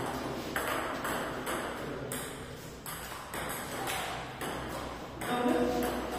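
Table tennis rally: the celluloid ball clicking off the paddles and the table, about two hits a second.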